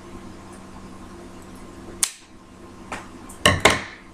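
A sharp snap about two seconds in, then a fainter click and a quick cluster of louder clicks and knocks near the end: scissors cutting into a ballpoint pen's plastic ink tube to take the tip off.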